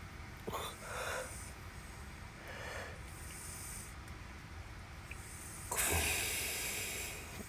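A woman snoring: three rasping snores a couple of seconds apart, the last one, near the end, the longest and loudest.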